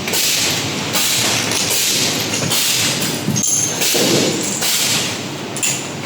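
Thuds and knocks of aluminium folding door hinge parts being assembled by hand, over a steady noisy background.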